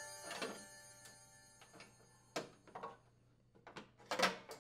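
A metallic ring fading away, then light knocks and clicks as the plastic muffler cover of a snowblower engine is handled and lifted off, the loudest knock near the end.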